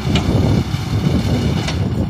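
Diesel tractor engine running steadily as it works a front loader, with wind buffeting the microphone and a couple of brief knocks.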